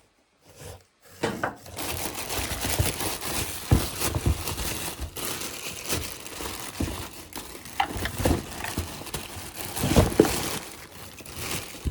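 Plastic packaging crinkling and rustling as the pressure washer's accessories are unwrapped, with a few knocks of parts being handled. It starts about a second in.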